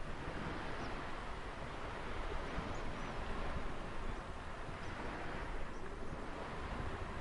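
Ocean surf washing in, a steady rush of noise that swells and eases, with a few faint short high chirps over it.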